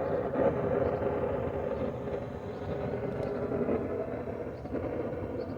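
A forge running with a steady roar.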